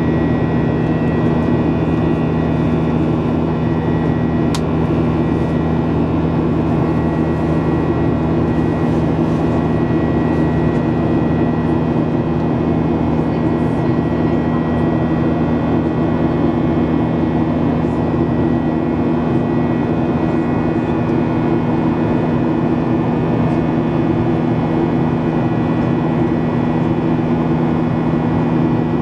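Boeing 737-800 cabin in flight: the CFM56-7B engines run steadily with a deep droning hum under airflow noise and a thin, high steady whine. There is one small click about four and a half seconds in.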